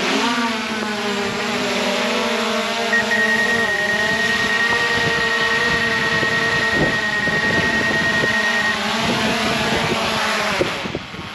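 Small folding quadcopter drone's propellers whining as it hovers in close, the pitch wavering as it manoeuvres, then winding down and stopping as it lands near the end. A steady high tone sounds for several seconds in the middle.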